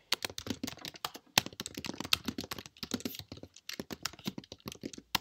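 Rapid typing on a computer keyboard, a quick run of key clicks with one short pause a little over a second in, as a git clone command is typed into a terminal.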